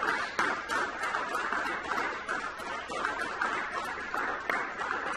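Audience applauding, a steady dense patter of many hands clapping.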